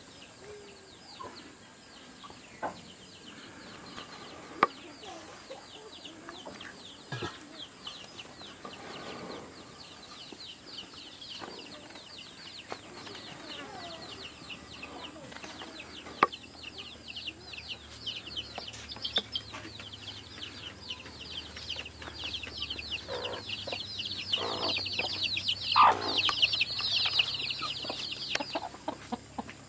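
Village farmyard ambience with chickens clucking, under a high, fast chirping chorus that swells from about halfway through and stops shortly before the end. Scattered light clicks.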